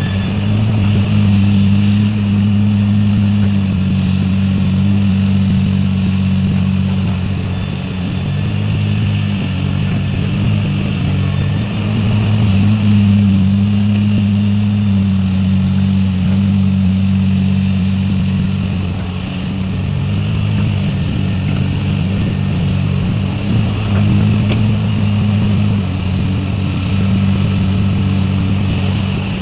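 Heavy diesel engine of mining machinery running steadily under load, its low note rising and falling slightly.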